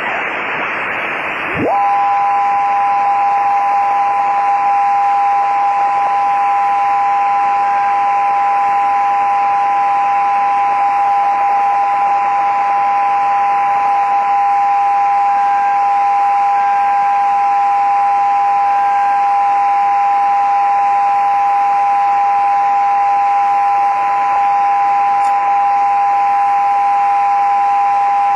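Kenwood HF transceiver's receiver on the 20 m band giving out a hiss of band noise. About two seconds in, a whistle slides down in pitch as the dial is tuned, then settles into two steady heterodyne whistles from carriers, held over the hiss.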